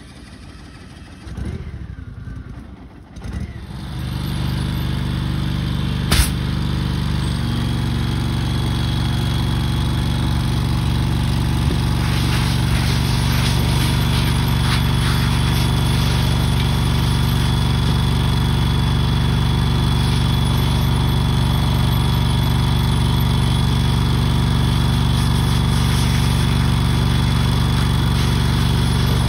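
An engine runs steadily after starting up about four seconds in, and its pitch steps up slightly a few seconds later. A single sharp crack sounds about six seconds in.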